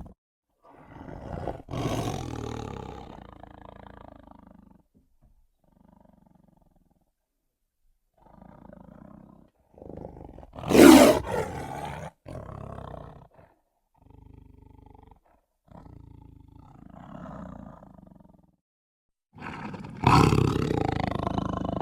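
A series of Malayan tiger roars of varying loudness, separated by short pauses. The loudest comes about eleven seconds in, and another loud roar begins near the end.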